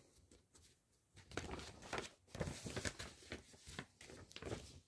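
Soft rustling and light ticks of paper being handled, starting about a second in: the printed cross-stitch chart and the cardboard thread card shifted under the hands.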